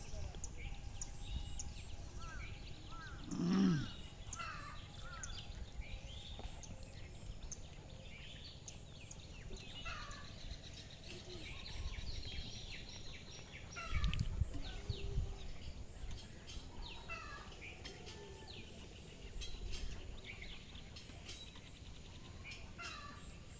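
Birds chirping and calling in many short, scattered notes over a low outdoor rumble, with one lower-pitched call about three and a half seconds in and a brief low rumble about fourteen seconds in.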